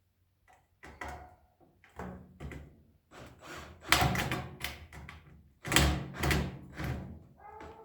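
Sheet-metal toaster oven shell being worked and knocked into place on the oven body: an irregular series of clunks and rattles, loudest about four and six seconds in.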